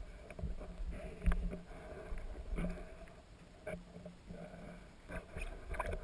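Sound picked up underwater by a camera in its housing: a low muffled rumble with irregular clicks and knocks from water moving around the camera and from handling, the loudest knock about a second in.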